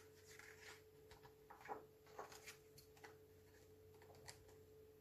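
Near silence with the soft rustle and light taps of a picture-book page being turned by hand, loudest about a second and a half in, over a faint steady hum.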